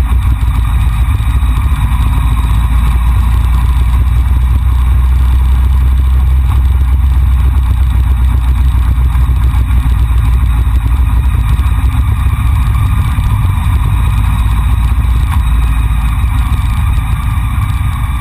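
Motorcycle engine running at a steady cruise, under heavy low wind rumble on a camera mounted on the moving bike. A faint whine from the engine drifts slowly in pitch.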